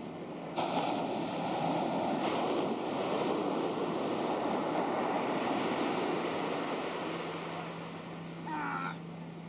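Ocean surf: a wave rushes in suddenly about half a second in, holds for several seconds and fades away, over a steady low hum. Near the end there is a short, high-pitched cry.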